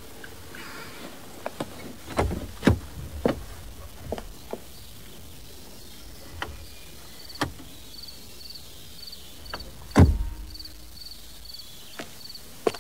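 Scattered knocks and thuds, the loudest a heavy thud with a low rumble about ten seconds in. Over the second half a faint high chirp repeats about twice a second.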